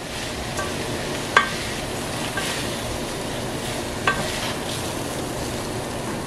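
Dry rice stirred with a wooden spoon through sautéed onions and bell peppers in a hot stainless-steel sauté pan, sizzling steadily as the grains fry in the butter and oil. The spoon knocks sharply against the pan twice.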